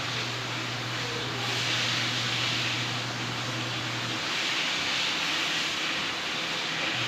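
Steady background hiss with a low hum; the hum drops out about four seconds in and comes back near the end.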